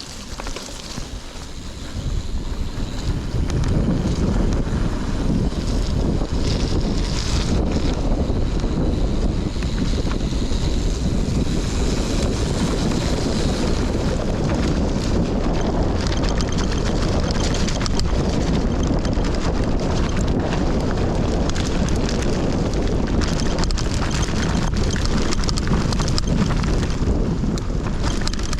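Hardtail mountain bike riding fast down a dirt trail: wind rushing over the microphone, tyres rolling on dirt and the bike rattling. The noise picks up about two to four seconds in and then holds steady.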